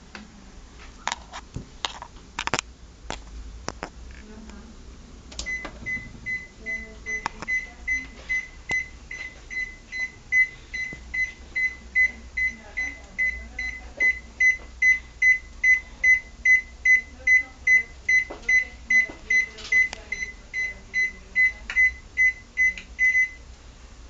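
Microwave oven beeping over and over by itself, a long run of identical short high beeps at about two to three a second that starts a few seconds in and stops near the end: the oven is malfunctioning. A few knocks and clicks come before the beeping.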